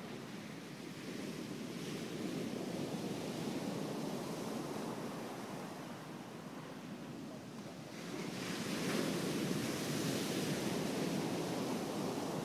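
Ocean surf washing, with wind blowing: a steady rush of noise that swells louder about eight seconds in.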